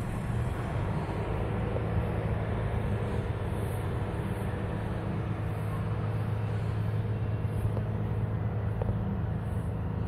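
Large engines running steadily with a low, even drone, the kind of machinery noise heard across a fairground.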